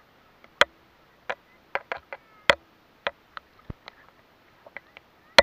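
Sharp, irregular clicks and taps on a camera held at the surface of the sea, from water slapping against it and from handling, about two a second with quiet between them.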